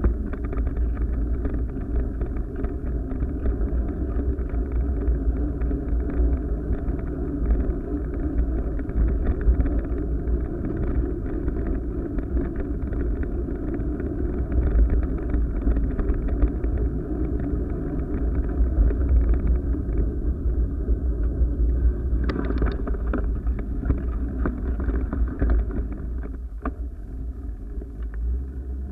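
Steady low rumble and wind buffeting from a camera moving along park paths, muffled as if through a camera housing, with a few sharp knocks about three quarters of the way in.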